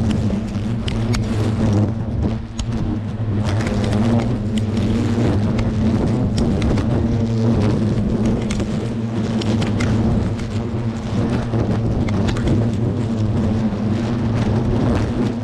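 A swarm of Asian hornets (Vespa velutina) buzzing close around the microphone in a steady, deep drone, with frequent sharp tapping as hornets strike and crawl on the camera. The disturbed colony's workers are attacking the equipment.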